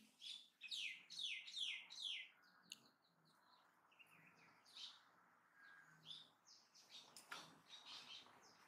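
A bird calling faintly: a quick run of about five short chirps, each sweeping downward in pitch, in the first two seconds or so, then a few scattered, fainter chirps.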